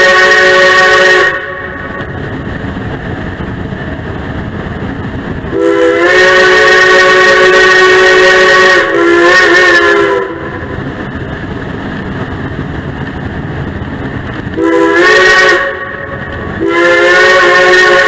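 Steam locomotive's multi-toned whistle blowing a long-long-short-long signal, the pattern sounded for a grade crossing, over the steady rumble of the moving train. The first long blast ends about a second in, the second runs about five seconds with a wavering tail, then a short blast and a final long one near the end.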